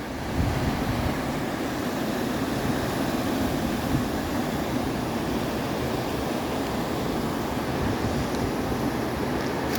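Mountain stream rushing over its bed, a steady wash of flowing water that gets a little louder about half a second in.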